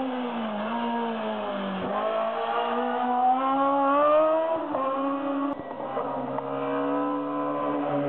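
Race car engine accelerating hard at full throttle. Its pitch climbs through the revs and drops sharply at upshifts about two seconds in and again near five seconds, then holds steady.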